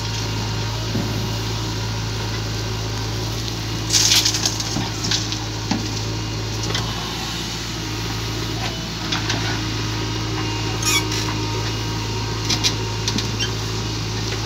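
JCB 3DX backhoe loader's diesel engine running steadily with a low hum while the backhoe digs soil. Metal clanks and rattles from the bucket and boom break in, loudest about four seconds in and again near the end.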